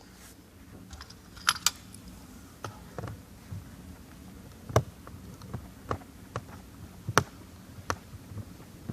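Precision screwdriver removing two small screws from a laptop screen bezel: a scatter of small, sharp plastic-and-metal clicks and taps at irregular intervals.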